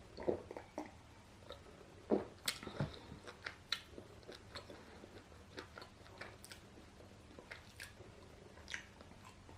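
A person biting and chewing crunchy food, with a quick run of crisp crunches about two to four seconds in and softer, scattered chewing sounds after.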